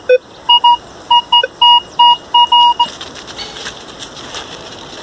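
Minelab Vanquish 440 metal detector beeping over a small silver ring: a quick string of short high beeps, the last one longer, with a couple of brief lower tones. From about three seconds in, rustling and crackling of leaf litter as the ring is picked up.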